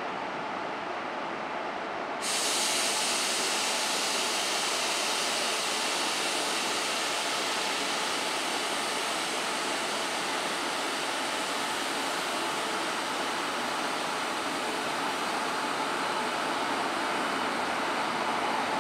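DB Class 143 electric locomotive hauling a regional train slowly into the platform, a steady rushing train noise. A sharp hiss comes in suddenly about two seconds in and carries on.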